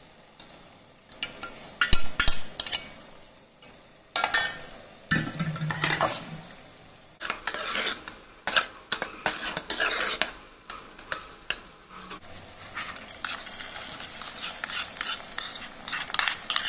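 Steel spoon scraping and knocking against an aluminium pot while curd is mixed into cooked rice. Near the end, a steady sizzle with crackling as hot oil tempering of mustard seeds, chillies and lentils is poured over the curd rice.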